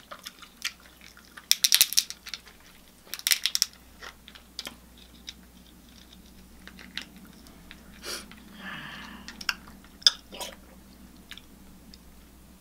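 Close-miked eating sounds of a person eating a seafood boil: chewing and mouth clicks, with two loud clusters of crackling crunches about two and three and a half seconds in, and a short hissing, noisy stretch near nine seconds.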